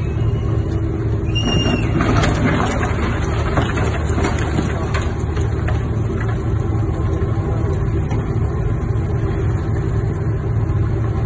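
Low, steady drone of a large rescue vessel's engines and propellers working close by. About two seconds in, a few seconds of cracking and knocking rise over it as the vessel's hull strikes and crushes a moored sailing boat.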